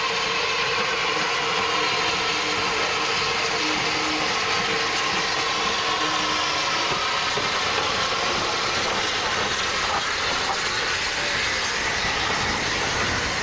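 Rebuilt Bulleid Battle of Britain class steam locomotive 34053 drawing into the station with its train: a steady hiss of steam over the running of the engine and coaches.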